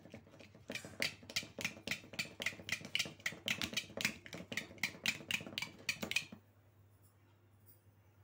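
A pen tapped rapidly against the top of an unopened aluminium drink can, jabbing at the pull-tab: sharp metallic clicks about four a second, stopping about six seconds in.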